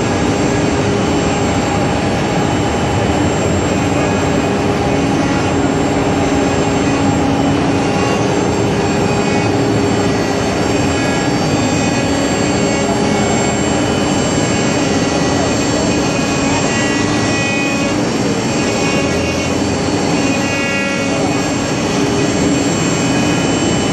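A four-axis, multi-head wood CNC router running, its spindles cutting wood: a loud, steady machine noise with several held tones.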